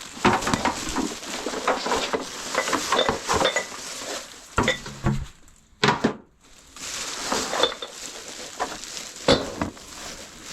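Household items being rummaged through and moved about: a busy run of knocks, clinks and clatter, with a brief lull about six seconds in.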